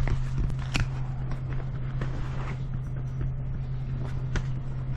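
Steady low machinery hum with a low rumble beneath it, broken by a few light clicks.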